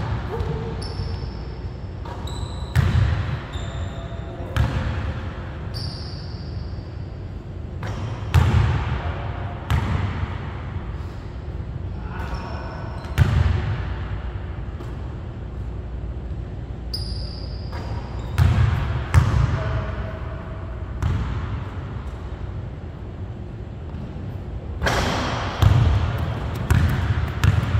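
A basketball bouncing and thudding on a hardwood gym floor at irregular intervals during play, with short high squeaks in between. Each impact echoes around the large hall.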